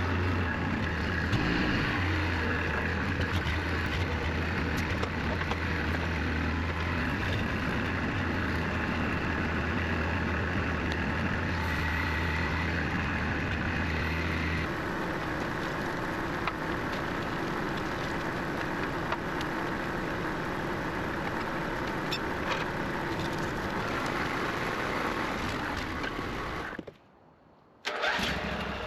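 Engine of a custom-built sawmill running steadily. Its low hum drops away about halfway through and the note changes, then the sound cuts out for about a second near the end and comes back.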